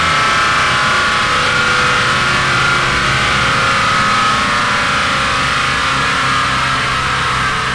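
Big-turbo Toyota 2JZ-GTE engine in a Nissan Cefiro running on a chassis dyno just after a wastegate-test pull, its revs having dropped back. It runs as a loud, steady drone with higher whirring tones that slowly fall in pitch.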